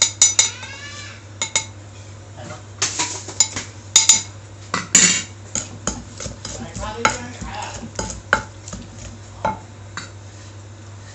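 Utensils clinking and scraping irregularly against a dish as food is stirred and mixed.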